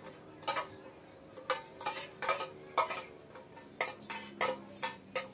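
A metal utensil scraping and knocking inside an opened tin of pork luncheon meat, making a run of about ten irregular sharp clinks.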